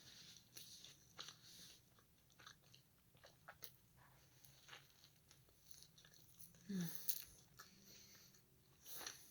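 Quiet, close-up chewing and biting on a hamburger: soft wet clicks and crunches scattered throughout. A short falling squeak comes about seven seconds in.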